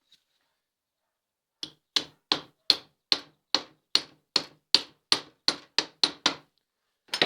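Hammer tapping a cup into place on a tractor's fan-belt roller: about fourteen quick, even taps, roughly three a second, then one more near the end, driving the cup home until it is seated.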